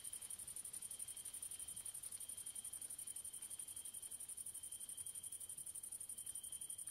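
Grasshoppers chirring in a steady, fast-pulsing, high-pitched trill, with a fainter, lower steady note that breaks off and resumes every second or so.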